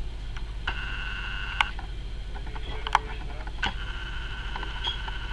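A steady electronic tone sounds twice, once briefly and then longer, with scattered sharp clicks over a constant low hum.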